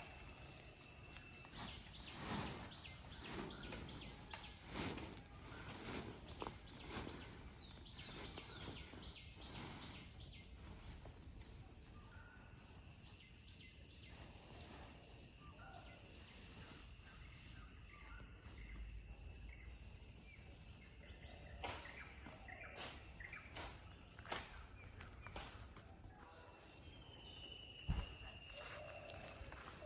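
Faint outdoor ambience: birds chirping on and off over a steady high-pitched hum, with a sharp knock a couple of seconds before the end.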